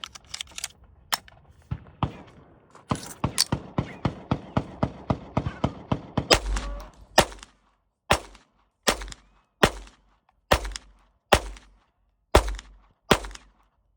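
Browning Buck Mark Camper .22 LR pistol fired shot after shot with CCI Mini-Mag hollow points, about one loud crack a second through the second half, in a test of whether the ammunition cycles the action. Before that comes a rapid string of quieter sharp cracks, about four a second.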